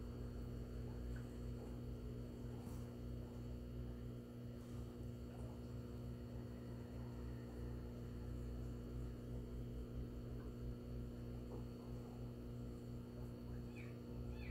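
Steady low electrical hum, with a faint street cat's meow rising in near the end.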